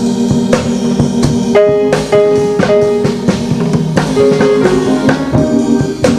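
Church choir's band playing a song's introduction: a drum kit keeps a steady beat, about two strokes a second, under held chords and notes.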